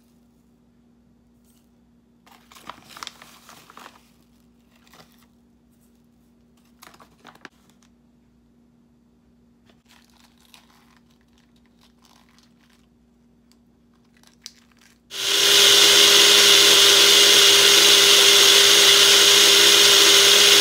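A personal single-serve blender switches on abruptly near the end and runs at a steady full speed, blending a thick smoothie with a loud, even whine. Before that there are only faint rustles and clicks from the ingredient pouch and spoon being handled.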